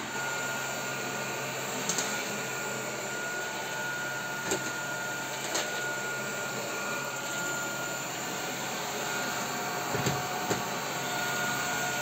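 Xiaomi Robot Vacuum E10 running, its motor and brushes making a steady hum with a thin high whine over it. A few short light knocks come through as it works along the skirting board and cabinet base.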